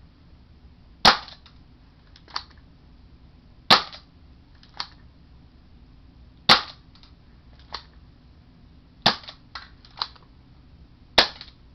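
UHC airsoft revolver firing five shots, one every two to three seconds, each a sharp pop followed by fainter clicks.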